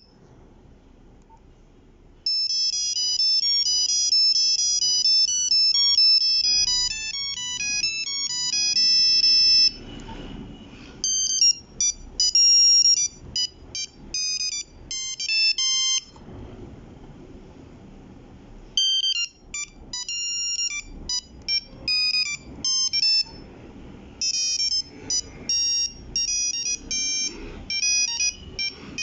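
Nokia 3310 playing its beeping monophonic ringtones one after another. The first tune starts about two seconds in, and there are short pauses between the tunes.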